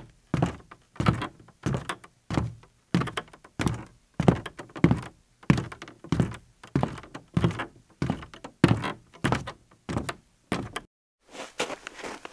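A regular beat of deep percussive thuds, about three every two seconds, that stops for a moment near the end and then picks up again for a few more hits.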